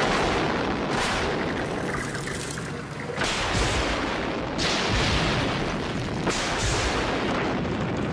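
Dynamite charges blasting in a reinforced concrete core: several sudden blasts a second or two apart, each followed by a long rushing wash of noise from flying debris and dust, fading near the end.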